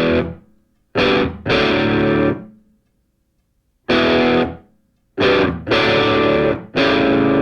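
Background music: distorted electric guitar chords, struck and left to ring, with short silent breaks between them.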